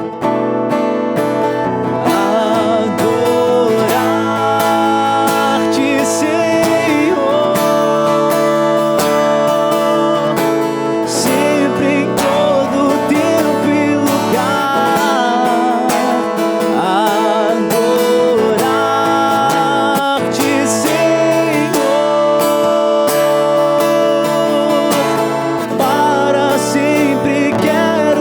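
Slow devotional music over strummed acoustic guitar chords, with a wavering melody line added from about two seconds in.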